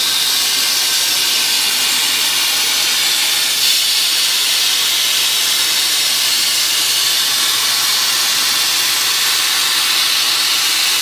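CNC plasma torch cutting sheet metal: the plasma arc and gas jet make a loud, steady hiss.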